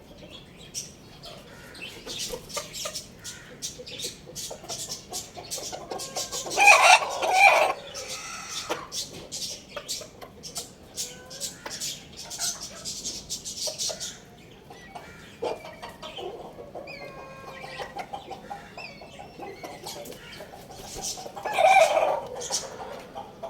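Rooster crowing twice, about seven seconds in and again near the end, with chickens clucking and short high chirps between the crows.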